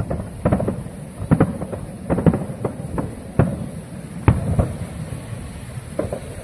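Fireworks going off: about ten sharp bangs and booms at irregular intervals, several coming in quick pairs.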